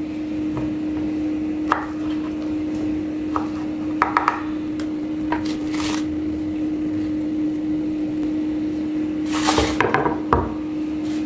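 Knife and banana pieces on a wooden cutting board: scattered taps, knocks and scrapes as sliced bananas are pushed off the board into a plastic container, with the loudest knock and scrape near the end. A steady low hum runs underneath.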